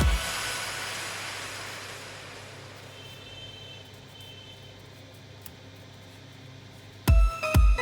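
Electronic background music. The beat cuts out and a hissing wash fades away over about three seconds into a quiet stretch, then the thumping beat comes back in near the end.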